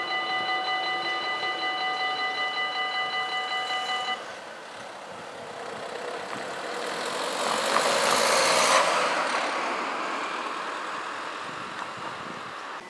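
Dutch level-crossing warning bell ringing in a steady pulsing clang, stopping about four seconds in as the barriers finish rising. Then a road vehicle drives past, swelling to its loudest a few seconds later and fading away.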